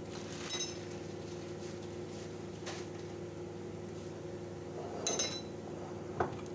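A metal spoon clinks twice against hard surfaces, once about half a second in and again around five seconds in, each time with a short ringing. Under it runs a steady low hum.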